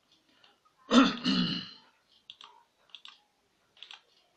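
A person clearing their throat once, loudly, about a second in. A few faint short clicks follow.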